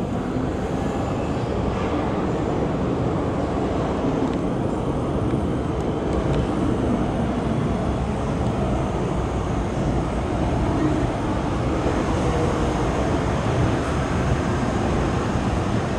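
MTR M-Train running into the station behind the platform screen doors: a steady rail rumble that grows slightly louder as the train draws alongside the platform.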